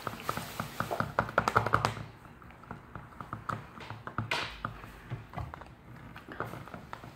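A plastic mixing stick tapping and clicking against a cup while stirring slime, in a quick run of taps for the first two seconds, then scattered taps, with a short swish a little past four seconds in.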